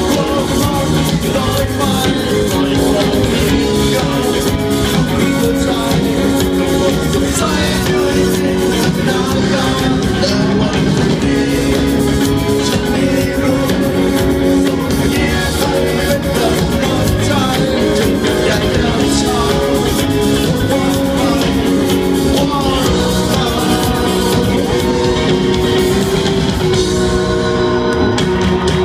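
A live band performing a song: a male singer into a microphone over electric bass, guitar, keyboard and drums, heard through the PA system from the audience.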